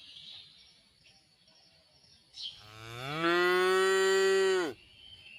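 A cow lowing once: a long moo that rises in pitch, holds steady and loud for over a second, then drops and breaks off near the end.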